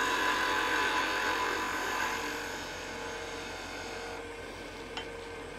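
Wood lathe running with a turning tool cutting a dry pear limb: a steady hiss of the cut over the lathe's motor whine. The cutting hiss fades and stops about four seconds in, leaving the lathe running, and a light click follows.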